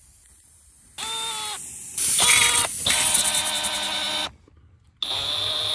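Cordless drill running in short bursts with sudden stops as it drives a Slime plugger bit and plug strip into a car tyre's tread: a brief run, a longer one, a pause of under a second, then another steady run.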